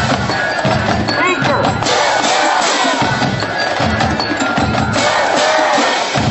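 High school marching band playing on the field, horns over a drum line with bass drum keeping a steady beat.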